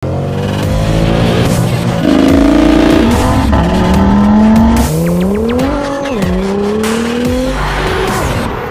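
A car engine accelerating hard, its revs climbing and falling back several times as it shifts up through the gears.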